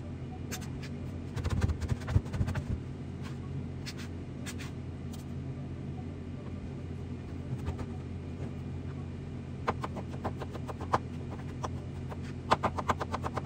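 Kitchen work sounds: scattered knocks and clicks over a steady low hum. About ten seconds in, and again near the end, come quick runs of evenly spaced taps.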